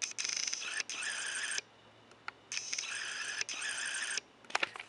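Autofocus motor in the lens of a Nikon D3100 whirring as it hunts for focus. There are two runs of about a second and a half each, with a short pause between them and a few light clicks.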